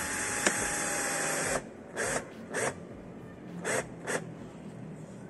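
Cordless drill-driver running steadily as it drives a screw into a plastic front lip, stopping about a second and a half in with a click along the way. Four short bursts of the drill follow as the screw is snugged down.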